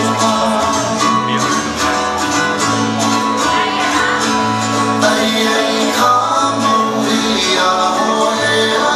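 Hula music: a song with plucked guitar and singing over a bass line that steps from note to note.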